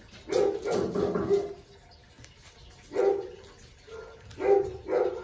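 Puppies yapping in short high calls: a quick run in the first second and a half, a single yap about three seconds in, and a few more close together near the end.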